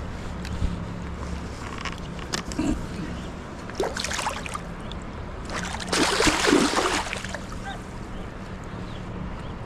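Water splashing: a short splash about four seconds in and a longer, louder one around six seconds in, over a steady low hum.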